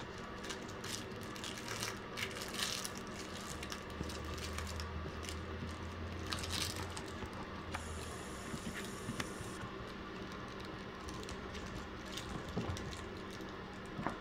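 Five-week-old Yorkshire terrier puppies moving about and playing on soft bedding and plush toys: scattered light rustles and taps over a faint steady low hum.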